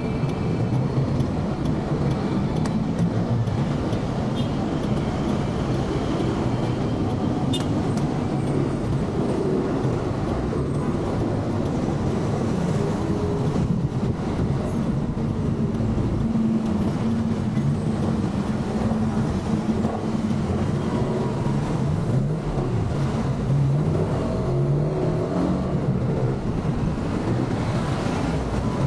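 Motorcycle engine running while riding in road traffic, its pitch held for stretches and then rising and falling, over a steady wash of road noise.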